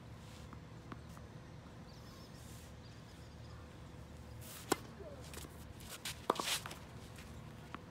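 Tennis serve: a single sharp pop of a 2014 Wilson Blade 16x19 racket, strung with Solinco Hyper-G at 48 lbs, striking the ball a little over halfway through. About a second and a half later comes another sharp ball strike, followed by a brief scuff of tennis shoes on the hard court.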